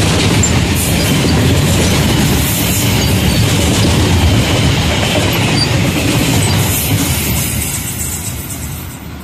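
Freight train of high-sided covered wagons passing close by, its wheels running loudly on the rails. The sound dies away as the last wagon goes past near the end.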